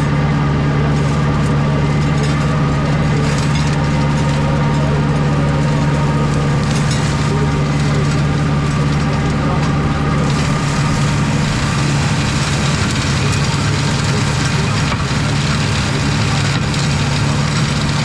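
Compact tractor engine running steadily under load, driving a flail mulcher that shreds thick blackberry brambles with a crackling, splintering noise over the drone. The chopping noise grows stronger about halfway through.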